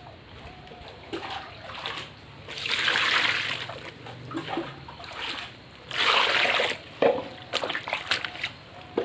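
Water splashing and sloshing as clothes are washed by hand, with two louder splashes of about a second each, around three and six seconds in, and smaller splashes and knocks between them.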